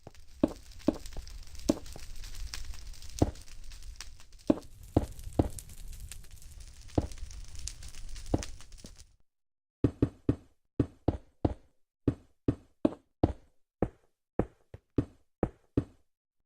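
Repeated sharp knocking, about two knocks a second, over a steady hiss for the first nine seconds, then on its own after a brief pause.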